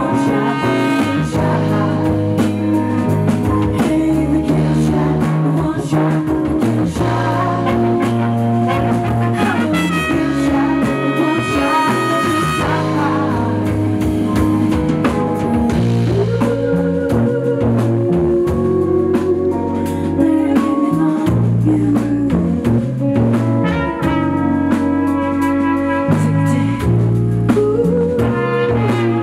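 Live band music: saxophone and brass playing held horn lines over a drum kit and bass.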